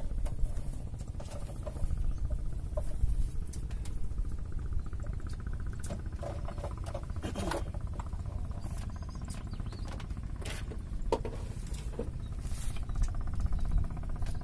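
Steady low rumble of wind on the microphone, with scattered short squeaks and clicks as fishing rods are handled on a fishing raft.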